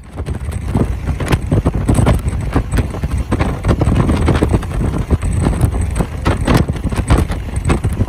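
Strong wind buffeting the microphone: a loud, rough rumble with irregular crackling gusts.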